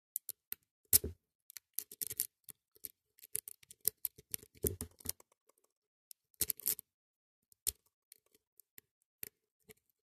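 Metal wave rake scraping in and out of a pin-tumbler padlock's brass cylinder against its standard chromed pins, under tension from a flat tension wrench: irregular clicks and short rasping scrapes with brief pauses, loudest about a second in and around the middle.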